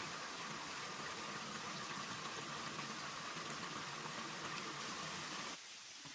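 Steady hiss of water, which drops abruptly to a quieter hiss near the end.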